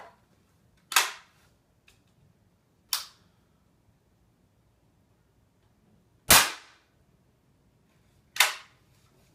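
Daisy Powerline 880 multi-pump pneumatic .177 air rifle, charged with ten pumps, firing once about six seconds in: a sharp crack, the loudest sound. Lighter sharp clicks come about a second in, at three seconds, and near the end.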